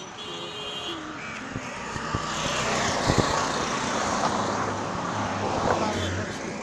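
Road traffic: cars and an auto-rickshaw passing close, engine and tyre noise swelling through the middle, with a couple of low thumps about three seconds in.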